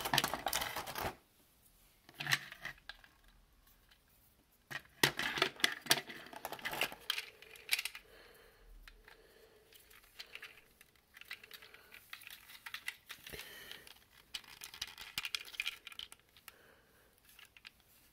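Plastic parts of a snap-together Testors B-17 model kit being handled and pressed together near a clear plastic blister tray: clusters of small clicks, rattles and crinkles with quieter pauses between.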